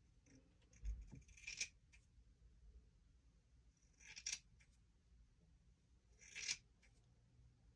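Scissors cutting hair: three short, crisp snips a couple of seconds apart, with a soft low thump just before the first.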